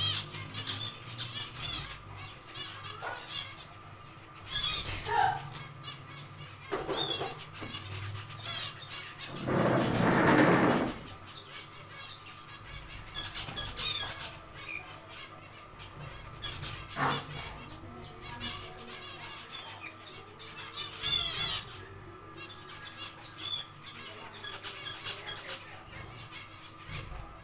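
Zebra finches calling with many short, high chirps while fluttering about the cage, with a louder flurry of wingbeats about ten seconds in that lasts over a second.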